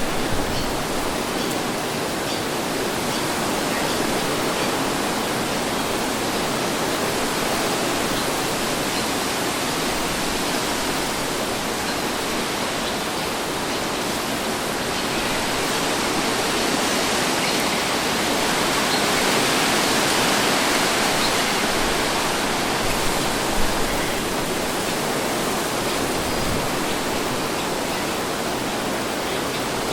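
Wind blowing steadily as a rushing hiss, swelling in a slow gust about two-thirds of the way through and easing again, with a couple of faint ticks just after the peak.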